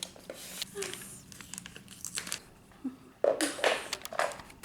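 Treat bag crinkling and rustling as it is handled and opened, in scattered bursts with a louder rustle about three seconds in.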